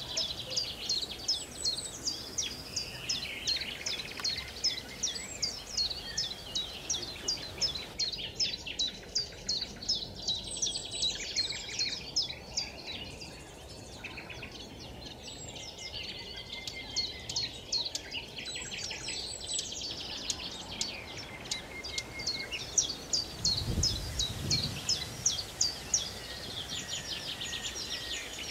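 Songbirds singing: dense runs of quick, high chirps sweeping downward, several a second, over a steady background hiss.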